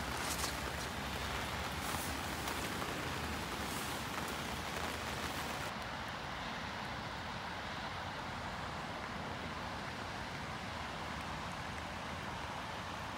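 Steady rain falling, with a few close drops tapping in the first seconds. About six seconds in the hiss turns duller, its highest part dropping away, and an even rain sound goes on.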